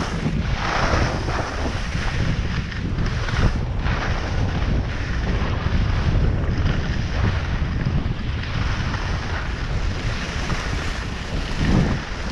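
Wind rushing over the microphone of a downhill skier's camera, a steady low rumble, with the hiss of skis sliding on packed snow swelling and fading with the turns.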